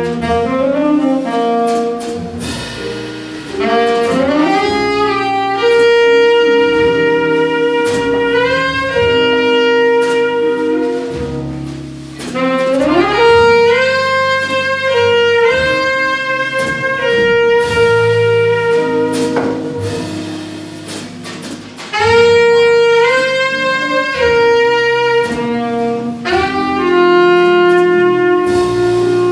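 Live jazz ballad: a tenor saxophone plays long held notes joined by rising runs, over upright bass, jazz guitar and drums with cymbal strokes.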